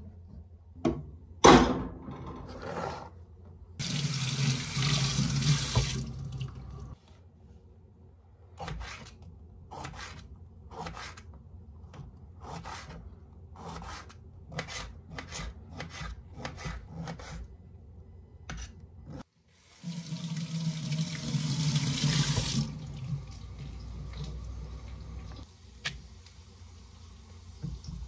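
Kitchen tap running twice, each time for about two to three seconds. Between the two runs comes a string of irregular knife taps from a tomato being sliced on a wooden cutting board, with a few louder knocks near the start.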